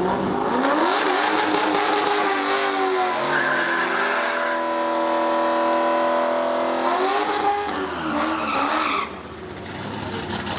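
A V8 drag car doing a burnout: the engine revs up over a few seconds and is held at high revs while the rear tyres spin and squeal, then eases off and drops sharply about nine seconds in.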